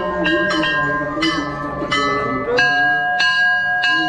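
Hanging brass temple bells being struck over and over, a clang about every half second, their long rings at several different pitches overlapping.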